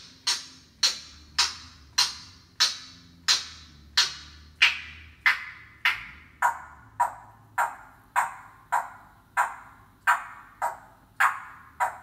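Congo African grey parrot mimicking a construction sound: a steady series of sharp, ringing knocks, about one every 0.6 seconds, with the knocks sounding lower in the second half.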